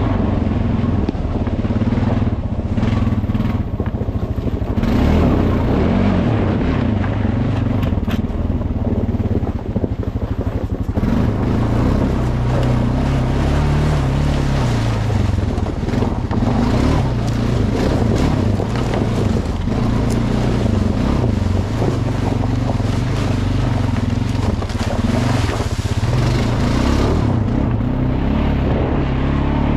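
Honda 420 ATV's single-cylinder four-stroke engine running under throttle as it rides a trail, its pitch rising and falling with the throttle, over a steady rush of tyre noise through dry leaves.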